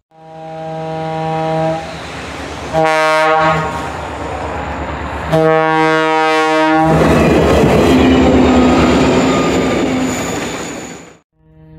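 A diesel locomotive's air horn on a snow plow train blows three times, long, short, long, as a warning for a grade crossing. The train then passes close, a loud rumble with the rush of snow thrown off the plow, which stops suddenly near the end.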